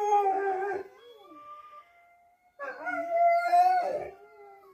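A dog howling: one howl trails off about a second in, then a second howl starts past the halfway point and breaks off shortly before the end.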